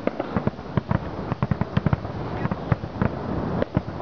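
Aerial fireworks shells bursting: a rapid, irregular run of bangs and pops, several a second, deep booms mixed with sharper cracks.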